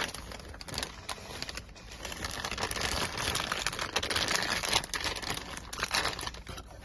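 Plastic dust and waterproof bag around a patch panel crinkling and rustling as it is handled, an irregular rustle with small clicks throughout.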